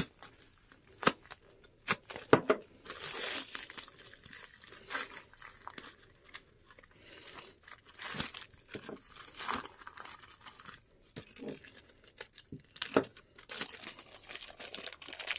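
Plastic parcel packaging being torn open and crinkled by hand, in irregular rustles with a few sharp clicks.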